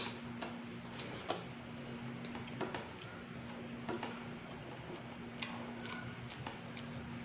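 Eating sounds: faint, irregular soft clicks and smacks of chewing and of fingers picking at air-fried chicken, over a steady low hum.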